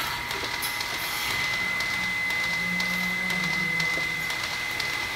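Milking machine equipment running in the parlour: a steady hiss with a constant high whine and scattered light clicks, and a low hum for a couple of seconds in the middle.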